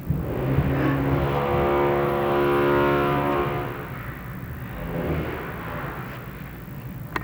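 A motor running at a steady pitch for about three seconds, then fading away, with a couple of sharp knocks near the end.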